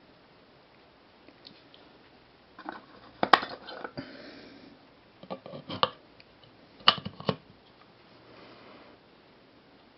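Sharp plastic clicks and clatter of an 18650 lithium-ion cell being pulled out of one plastic charger cradle and pressed into another, with the cell knocking against the spring contacts. The clicks come in a cluster from about a third of the way in until three-quarters through, loudest near the start and near the end of that run.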